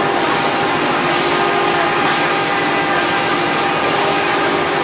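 CNC router spindle running steadily as it cuts grooves into an MDF door panel: a continuous whine with several steady tones over the noise of the cut.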